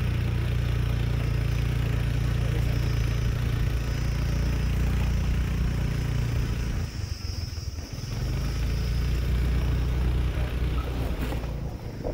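Steady low rumble of a running vehicle, easing briefly about seven seconds in.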